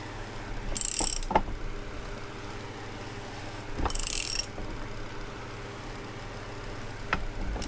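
Ratchet wrench being swung in two short strokes about three seconds apart, its pawl rasping, as a part on an outboard's lower unit is tightened down. A steady low hum runs underneath.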